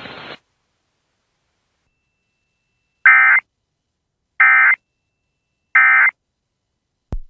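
Three short identical bursts of EAS/SAME data tones, each about 0.4 s long and about 1.4 s apart: the end-of-message (NNNN) signal that closes a relayed emergency alert. Before them a faint radio hiss cuts off just after the start, and a brief click comes near the end.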